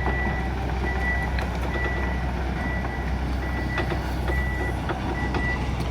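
Earthmoving machine's engine running with its reversing alarm beeping, a single high beep a little more than once a second, over a steady low engine rumble, as the machine backs up while filling and packing down a trench. A few faint knocks come through.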